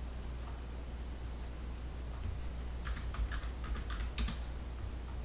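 Typing on a computer keyboard: a quick run of keystrokes in the second half, over a steady low hum.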